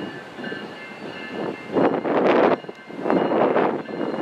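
BNSF diesel locomotive leading an empty grain train, approaching at low speed with its engine running. The rough noise swells sharply about two seconds in and again about three seconds in, over a faint steady high whine.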